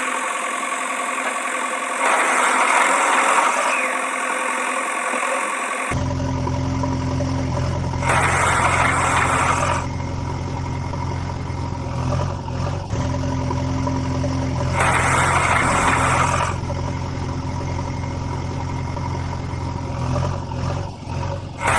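Construction-machine engine sound, of the backhoe-loader kind. A steady low engine note sets in about six seconds in, after a higher mechanical whine, with bursts of hiss every several seconds.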